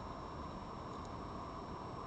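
Steady hiss from the garden camera's microphone with a faint, constant high whine, and no distinct event.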